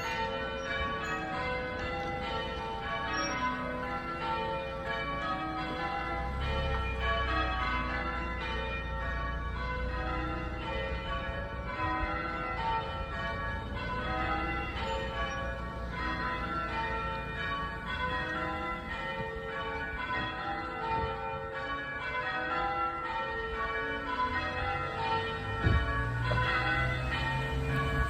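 The front five of St George's eight church bells, cast by Taylor's of Loughborough in 1920, ringing one after another in an even, continuous sequence of strikes. A low rumble sits underneath for several seconds partway through and again near the end.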